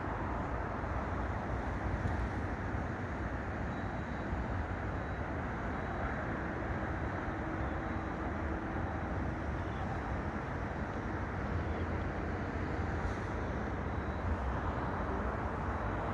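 Train running with a steady low rumble and even noise, no sudden events.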